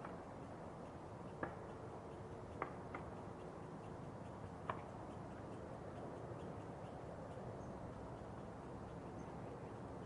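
A steady rumble of distant traffic with a few sharp knocks of distant construction work, four of them in the first five seconds.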